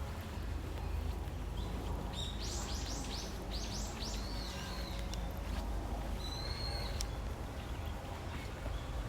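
A songbird singing: a quick run of about eight high sweeping notes about two seconds in, then a single short held whistle later on, over a steady low rumble.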